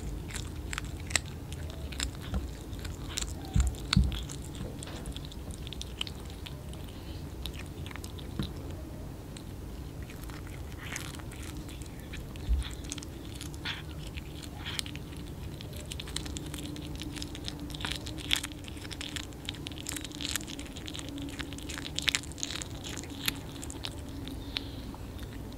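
Kittens chewing and biting into small raw whole fish: irregular wet crunches and clicks, now single, now in quick clusters.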